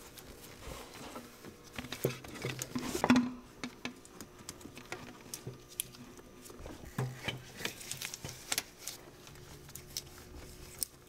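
Gloved hands handling rubber breather hoses and plastic PCV parts in an engine bay: scattered light clicks, taps and rustling, with a sharper knock about three seconds in.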